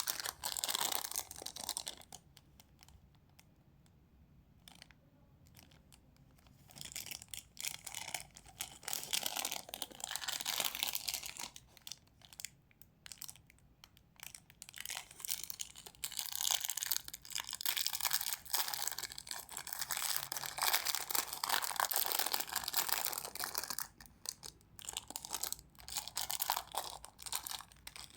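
Crinkly plastic biscuit wrappers being handled and torn open, in several bouts of crackling with short pauses between.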